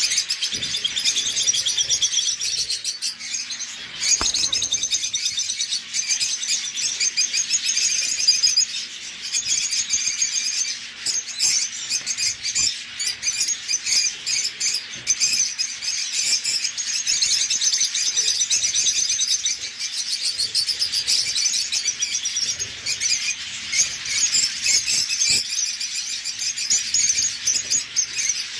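Many caged birds chirping and twittering together in a dense, continuous chorus, over a faint steady hum.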